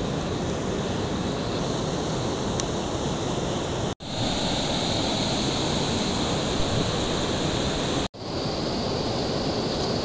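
River water rushing steadily over rocky rapids, broken by two brief dropouts about four and eight seconds in.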